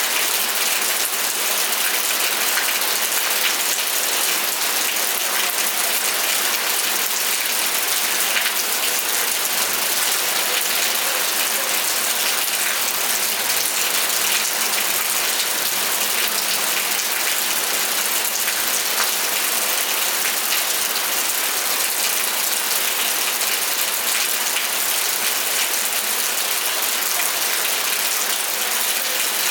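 Steady rain falling, a dense, even patter of many fine drops with a bright, hissing quality.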